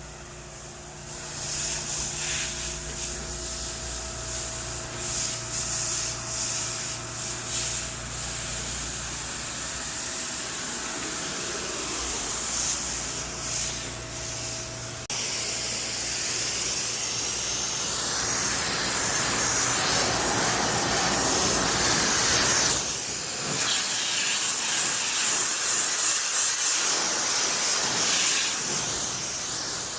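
High-pressure water spray hissing as a pool screen enclosure is rinsed, with a pressure washer engine's steady hum under it for the first half. The sound changes abruptly about halfway through, and the spray is louder after that.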